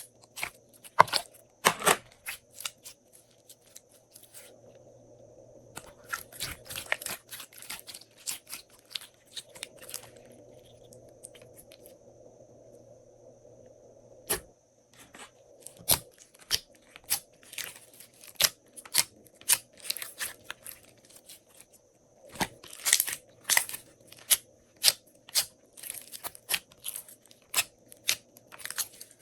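Hands working glossy slime: irregular runs of sticky clicks and crackles, in dense clusters with quieter gaps between.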